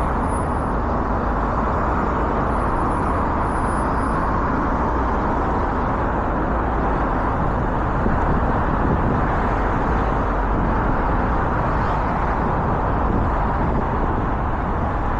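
Steady road-traffic noise, an even, continuous wash of passing vehicles with no single vehicle standing out.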